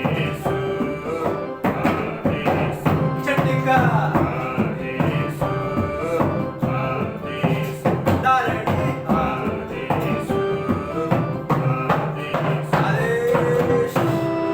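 Hindi devotional bhajan music: a keyboard melody with bending, sliding notes over a steady dholak drum rhythm.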